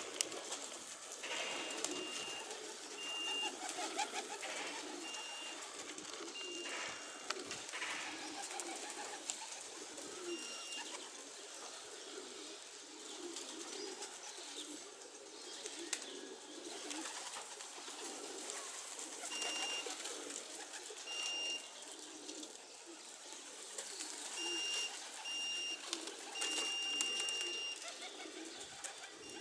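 Racing pigeons cooing at the loft, a steady run of low throbbing coos throughout. Short high beeps sound in small groups, about a second in, around ten seconds in, and again near the end.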